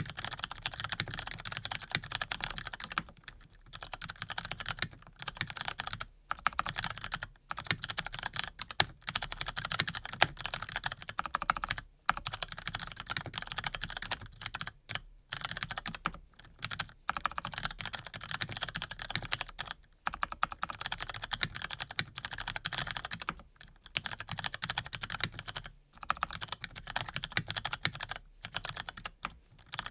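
Continuous fast typing on a Razer BlackWidow V3 Pro mechanical keyboard with lubed Cherry RGB Brown switches, a dense patter of keystrokes in runs broken by brief pauses every second or two.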